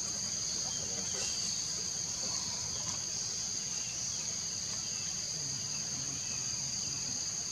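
A steady, high-pitched insect chorus, unbroken, of the kind made by cicadas or crickets in tropical forest.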